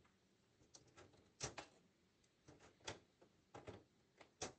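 Near silence broken by faint, irregular sharp clicks and taps, about eight of them.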